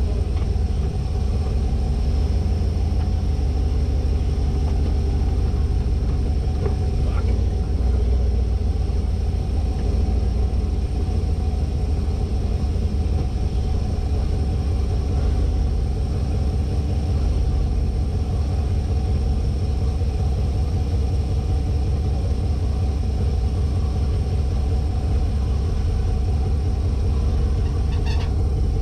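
The 1972 Winnebago Brave motorhome's engine running steadily, heard from inside the cab as a constant low rumble.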